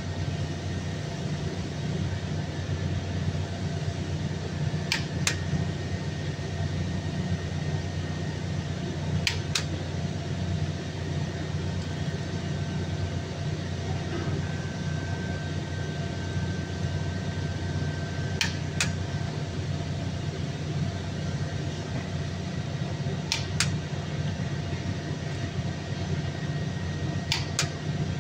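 Click-type torque wrench breaking over at its 100 ft-lb setting on the connecting rod cap bolts: five sharp double clicks spaced several seconds apart, over a steady low hum.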